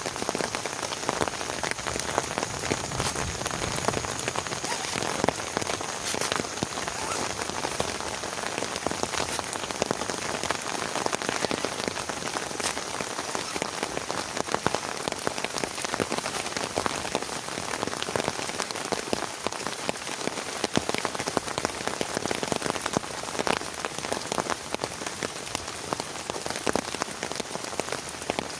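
Heavy rain falling steadily, a dense, unbroken hiss of many individual drops striking a surface.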